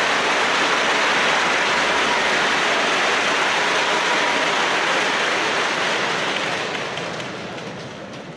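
Arena crowd applauding: dense, steady clapping that dies away over the last two seconds or so.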